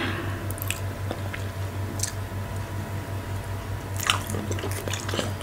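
Close-miked eating sounds: fingers squishing soft fufu through okra stew, then wet mouth smacks and chewing, with a cluster of sharper smacks about four seconds in as a lump goes into the mouth. A steady low hum runs underneath.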